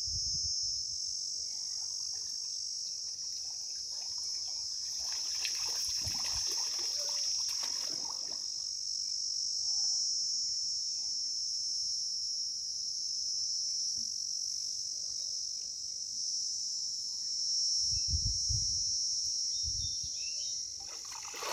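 Insects droning steadily at a high pitch, with a few low rumbles near the end.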